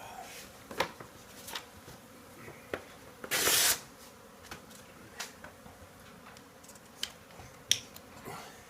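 Honeybees buzzing around an opened hive, with scattered clicks and knocks of handling and one brief loud rustling burst about three and a half seconds in.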